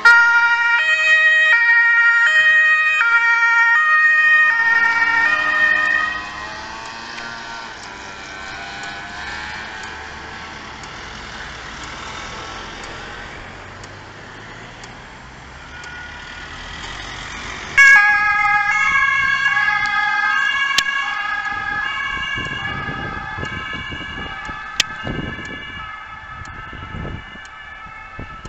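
German two-tone emergency sirens (Martinshorn), switching between a high and a low pitch. The first switches on loud as an emergency-doctor car pulls away, then fades after about five seconds. A second two-tone siren, from a police car, starts suddenly about 18 seconds in, loud at first and slowly fading as it drives off.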